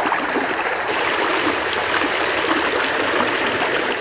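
Steady rushing of a flowing river, an even hiss with no break.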